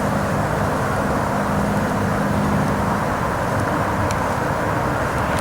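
Light airplane's engine droning as it passes, its steady hum weakening about three seconds in.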